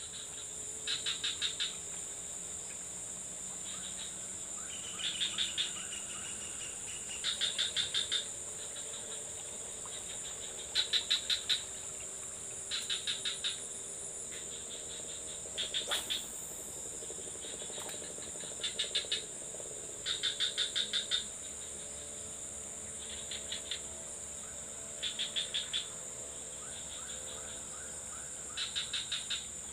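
Evening insect chorus: a steady high-pitched drone with groups of rapid chirps that repeat every two seconds or so.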